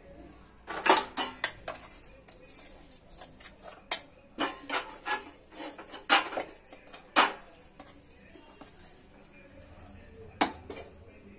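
A spoon scraping and tapping against a steel mixer-grinder jar and a steel plate, knocking out finely ground sesame powder: irregular clinks and knocks, the sharpest about a second in, around six and seven seconds, and near the end.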